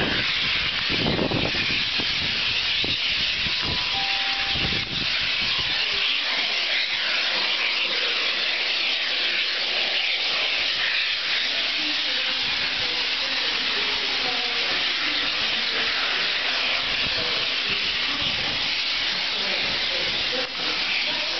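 Steady hiss of steam from a distant steam locomotive, with some low rumbling thumps in the first few seconds.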